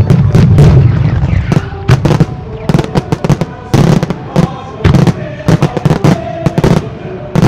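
Fireworks display: aerial shells bursting in rapid succession, a dense run of sharp loud bangs and reports, the heaviest cluster about half a second to a second and a half in. Music plays faintly underneath.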